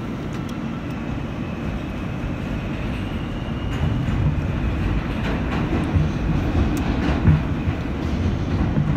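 R160A subway car (Alstom-built) pulling out and running into the tunnel, heard from inside the car: a steady low rumble that grows louder about four seconds in. Wheels clack over rail joints, and a faint whine rises early on as the train picks up speed.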